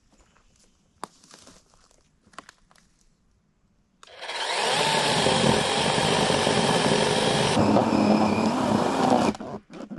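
A small power saw starts about four seconds in and runs steadily for about five seconds, cutting through wood, then stops; its sound thins partway through. A few light clicks and knocks come before it.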